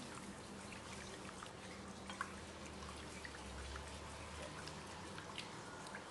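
Silicone spatula stirring yeast, sugar and warm water in a glass bowl: faint liquid swishing with many small scattered ticks, and one sharper click about two seconds in.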